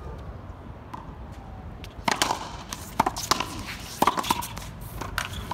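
Racquetball rally on an outdoor concrete wall court: the ball cracks off racquets and the wall in a quick run of sharp pops, starting about two seconds in.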